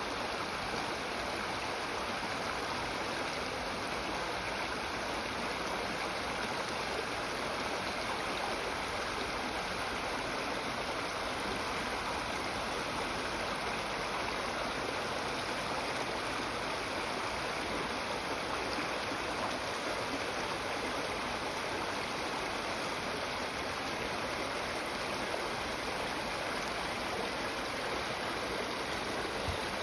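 Creek water flowing, a steady, unbroken rush.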